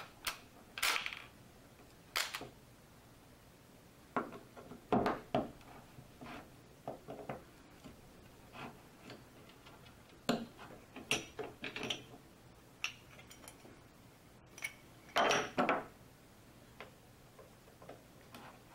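Irregular clicks, clinks and short rattles of a screwdriver, small screws and the metal case of an old mechanical taximeter being handled and unscrewed. There are louder clatters about five seconds in and again a few seconds before the end.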